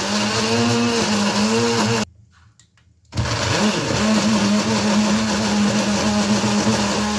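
Food processor motor running, grinding onion, garlic, ginger, green chilli and coriander roots into a paste. It stops about two seconds in and starts again about a second later.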